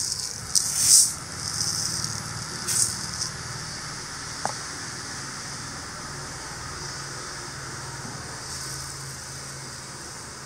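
Dry toor dal (split pigeon peas) poured from a plastic tub into a steel bowl, the grains rattling in two short pours within the first three seconds. After that, a steady low hum and hiss of background.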